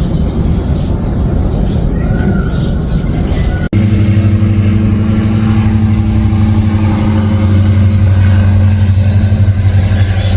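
A loud, steady mechanical hum, a motor or engine running, that cuts in after a sudden break a little over a third of the way in. Before it there is a rumbling noise with a couple of short bird chirps.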